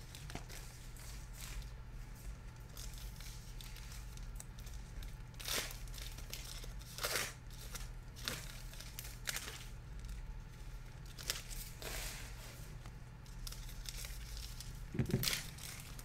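Foil trading-card pack wrappers being torn open and crinkled by hand, with several short sharp rips, the loudest about seven seconds in and near the end. A steady low hum runs underneath.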